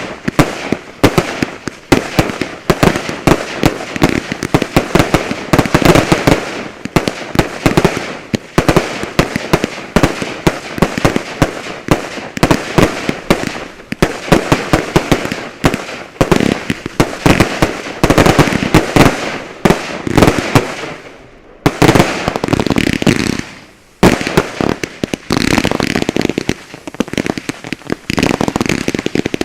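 Fireworks finale: a dense, continuous barrage of bangs and bursts, many per second, that thins out briefly about two-thirds of the way through before building up again.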